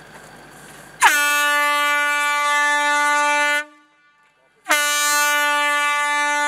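Blasting warning horn sounding two long, steady blasts, the first about a second in and the second near the end. This is the warning signal that the demolition blast is imminent.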